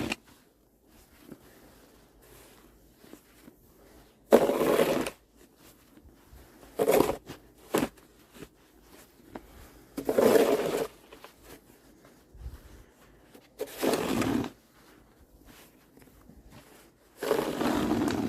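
Snow shovel scraping along pavement in repeated pushes, one short scrape every three seconds or so, with quiet between.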